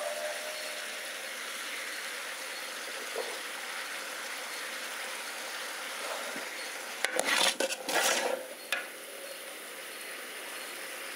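Chopped vegetables cooking in a large aluminium pot with a steady sizzling hiss. A long metal stirrer scrapes and clatters against the pot for a couple of seconds past the middle.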